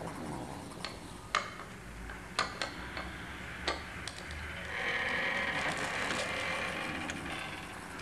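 Several sharp, irregular raps on a wooden door over the first few seconds, then a louder, steady sound lasting about three seconds.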